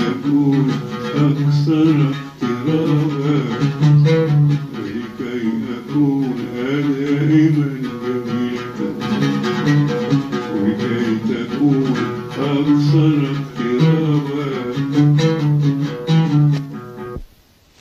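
Oud played in melodic phrases, the plucked notes accompanied by an elderly man's voice singing the tune. The playing breaks off shortly before the end.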